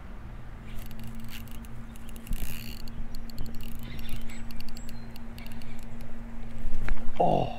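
Clicking and rustling from a baitcasting rod and reel being worked while fighting a hooked fish, over a steady low hum. Near the end there is a short exclamation that falls in pitch.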